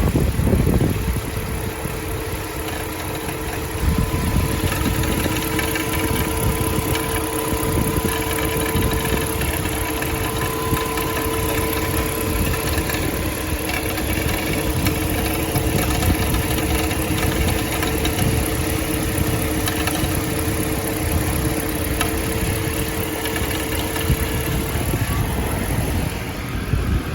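Mercedes-Benz M119 V8 idling warm with reverse gear engaged, with a knocking sound that appears only in reverse. It gets louder about four seconds in, and a steady hum under the engine stops near the end.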